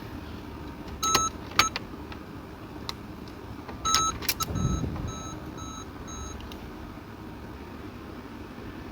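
Car's electronic warning chime beeping, with sharp clicks: a click and beep about a second in, then another click and beep near four seconds followed by about four short evenly spaced beeps, roughly two a second.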